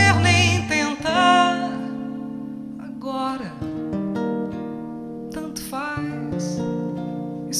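A woman singing with acoustic guitar accompaniment: a held, wavering sung note in the first second and a half, then mostly guitar with short sung phrases.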